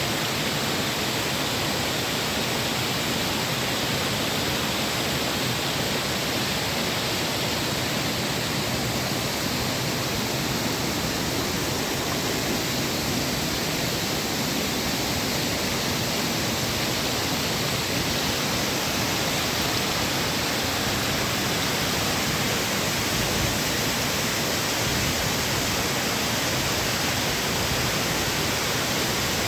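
Girlevik waterfall: falling water making a steady, even rush that holds without a break.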